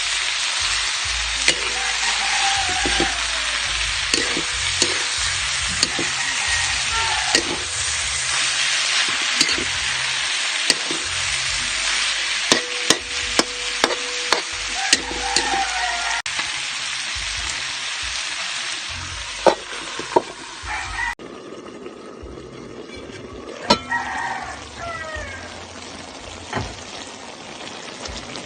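Food sizzling as it fries in a pan while being stirred, with a utensil clacking against the pan several times in quick succession midway. About two-thirds of the way through the sizzle drops abruptly to a quieter level, with a few more clacks.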